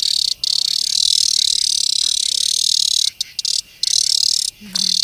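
Cicada giving its loud, harsh distress buzz while held in a hand, broken by a few brief pauses, several of them about three seconds in.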